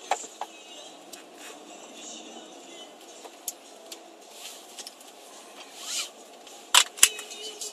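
Off-road vehicle driving over desert sand: a steady haze of driving noise with scattered rattles and clicks, and two sharp knocks close together near the end.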